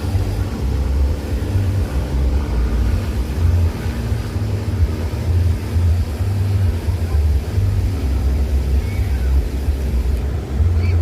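Wind buffeting the microphone: a heavy, uneven low rumble that swells and drops in gusts.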